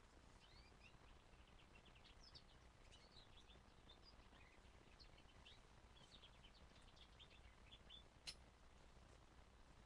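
Faint, rapid twittering of a young canary: many short, high chirps in quick runs. A single sharp click about eight seconds in.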